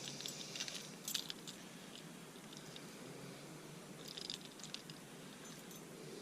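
Field-dressing a whitetail deer: soft wet squishing of hands and knife working in the carcass, with short crackles just after the start, about a second in and again around four seconds in.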